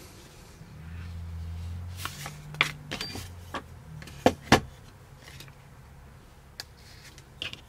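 Hands handling a black vinyl sheet and a small plywood block on a cutting mat: light rustling and several sharp knocks and clicks, the two loudest close together about four and a half seconds in. A low steady hum runs through the first few seconds.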